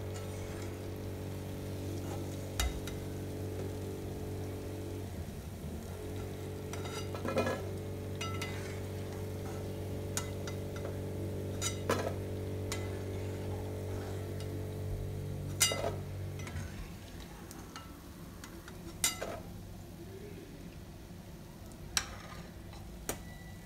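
Shankarpali dough pieces frying in hot oil with a soft sizzle, while a steel slotted spoon scrapes and clinks now and then against the aluminium pan and the plate as pieces are lifted out to drain. A steady low hum runs underneath and stops about two-thirds of the way through.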